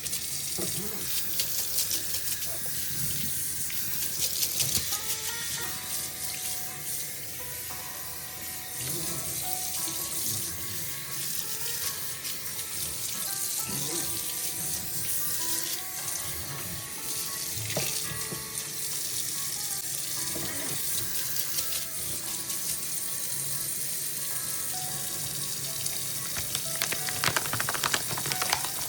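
Water running steadily from a kitchen sink tap, with soft background music playing over it.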